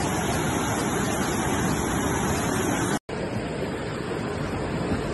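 Muddy floodwater rushing past in a fast torrent, a steady, even rushing noise. It drops out for an instant about three seconds in, then carries on.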